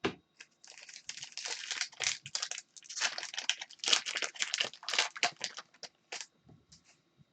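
Wrapper of a 2021-22 Upper Deck Artifacts hockey card pack crinkling and tearing as it is ripped open, a dense crackle that lasts about five seconds and then thins to a few light ticks.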